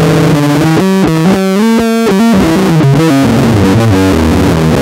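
Four-string electric bass guitar with new strings, plucked fingerstyle in a fast metal riff, notes changing several times a second.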